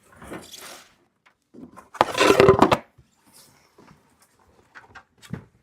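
Cedar beehive parts being lifted and shifted in their shipping box: a short scrape, then a loud clatter of wood knocking and sliding about two seconds in, followed by a few light knocks.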